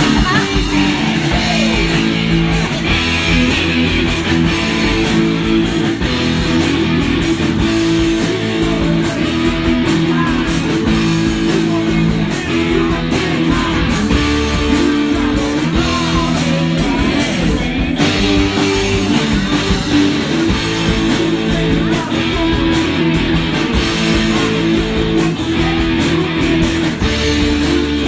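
Live rock band playing loudly: electric guitars over a drum kit.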